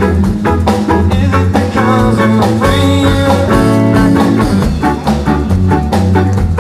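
A live band playing loud rock music: electric guitar over bass and a drum beat, with a held chord about three seconds in.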